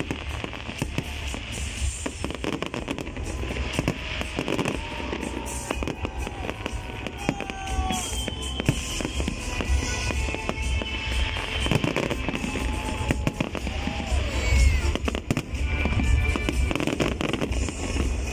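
Aerial firework shells bursting in a dense, continuous barrage of bangs and crackles, with music playing underneath.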